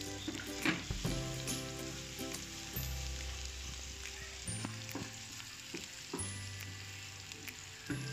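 Minced garlic sizzling in hot oil in a frying pan, stirred with a wooden spatula that gives a few light scrapes and taps. Soft background music with long held notes plays underneath.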